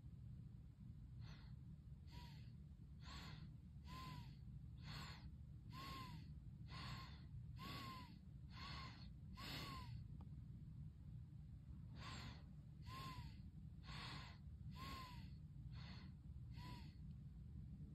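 A person's rhythmic breathy gasps, about one a second, each with a short squeaky rise and fall in pitch. They pause for about two seconds partway through, then resume before stopping near the end.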